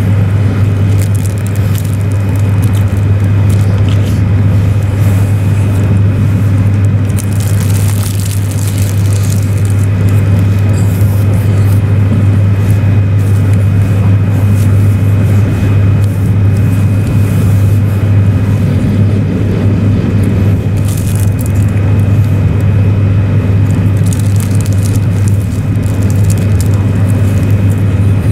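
Cabin noise of an E6 series Shinkansen running at speed: a steady low rumble with a faint high whine. Brief higher rustling noises come about eight seconds in and again about twenty-one seconds in.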